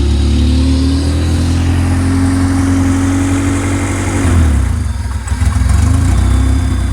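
Honda B20 2.0-litre four-cylinder engine in a Civic idling steadily through a Yonaka exhaust, with a brief dip in engine speed about four seconds in before it settles again.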